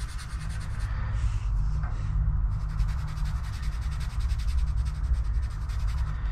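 A pointed marking tool scratching and rubbing along a steel plate as a line is marked out, over a steady low hum.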